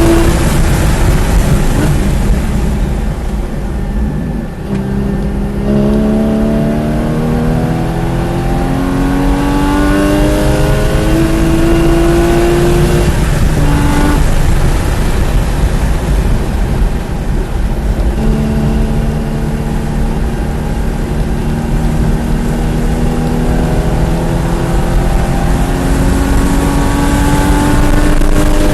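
Porsche 981 Cayman GT4's naturally aspirated flat-six at speed on track: the engine note climbs through the gears in several steps, falls away about halfway through under braking, then builds again in a long slow rise, over steady road and wind noise.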